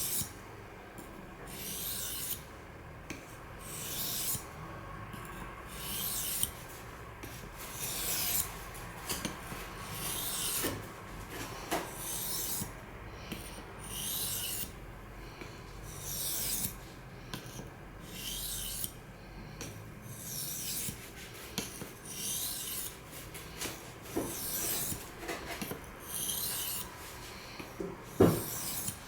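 Steel knife blade (CPM S30V) being stroked back and forth across a water sharpening stone, a series of gritty scraping strokes at about one a second. A sharper knock near the end.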